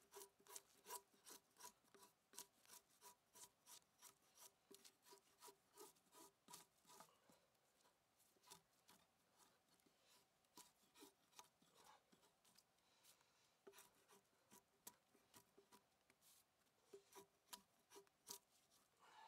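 Drawknife peeling bark off a log: a run of faint, quick scraping strokes, about three a second, with a few short pauses.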